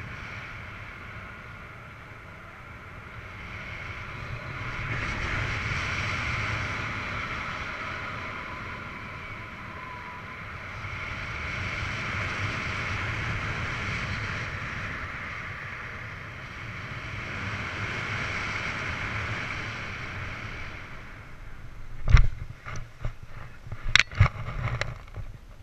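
Wind rushing over the microphone of a paraglider's point-of-view camera in flight, swelling and fading in several waves. About 22 s in it gives way to a run of sharp thumps and knocks as the pilot touches down on the grass and runs out the landing.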